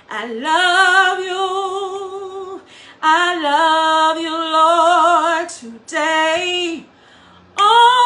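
A woman singing a gospel worship song unaccompanied, holding long notes with a wavering vibrato in three or four phrases, with short breaks for breath between them.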